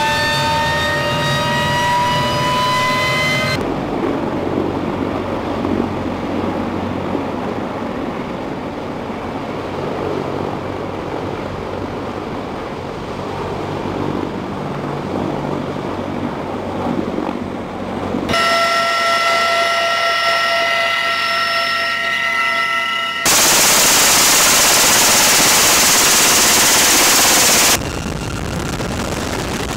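Military helicopter turbine and rotor noise in several cuts. It opens with a turbine whine rising in pitch, then a long stretch of rough, steady rotor and engine noise as a CH-53E Super Stallion flies past. Then comes a steady high whine, and near the end a few seconds of very loud, even rushing noise.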